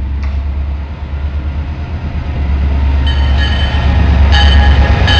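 CSX GP40-2 diesel locomotive, with its EMD 16-cylinder 645 engine, approaching and passing with a deep engine rumble that grows louder. About three seconds in, its horn starts sounding in short blasts.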